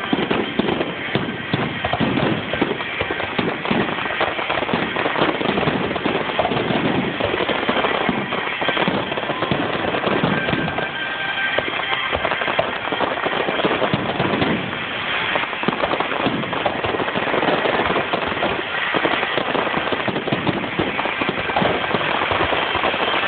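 Fireworks display with shells bursting and crackling in a dense, continuous run of rapid bangs.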